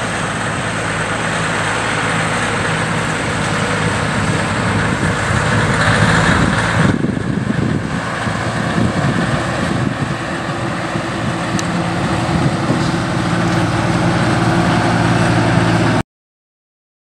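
Diesel engine of a semi tractor pulling a flatbed trailer as it drives past, running steadily and getting louder. About seven seconds in, the engine sound drops abruptly, then builds again.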